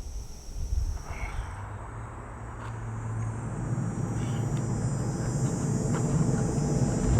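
Outdoor ambience: a steady high insect drone for the first second or so, then a low rumble that builds steadily louder, with a few faint chirps.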